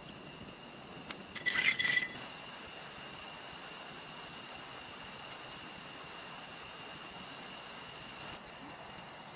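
A brief run of clinks from tableware on a camp table, about one and a half seconds in. Behind it, night insects keep up a steady high drone, and from about three seconds in a chirp repeats roughly every two-thirds of a second.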